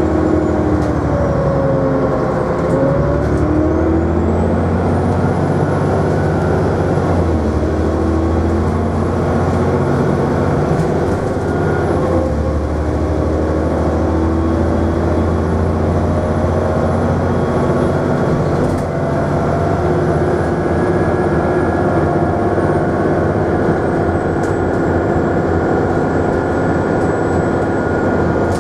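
Dennis Trident double-decker bus's diesel engine running hard under acceleration, heard from inside the lower deck. Its pitch drops and climbs again several times as it changes gear, with a thin high whine above.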